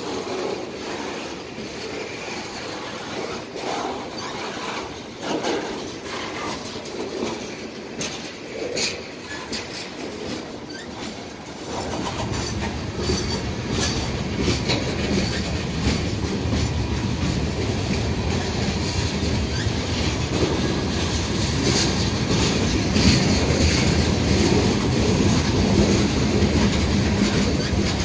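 Freight train rolling past at close range, its wheels clicking over the rail joints. Lumber-laden flatcars pass first; about twelve seconds in, boxcars take over and the rumble grows louder and fuller.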